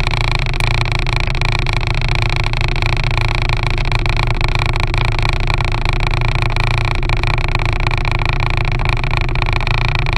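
RIB boat's outboard motor running steadily, a constant low drone with no change in speed.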